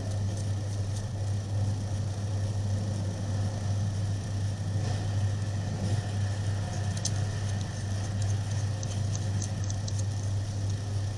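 A steady low hum, with a few faint light clicks in the second half.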